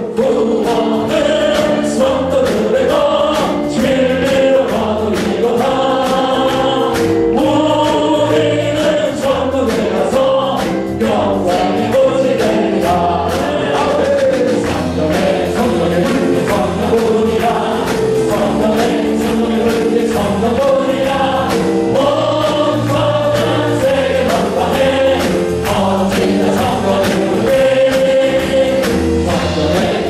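Korean gospel praise song led by a male worship leader singing into a handheld microphone, with many voices singing along over a steady beat.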